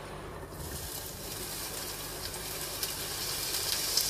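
Chopped onion and garlic sizzling in hot olive oil in a frying pan. The sizzle starts about half a second in and grows louder, with a few light clicks.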